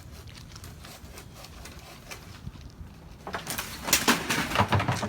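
Faint crackling, then about three seconds in a sudden loud crash of dense cracking and rustling that lasts about two seconds.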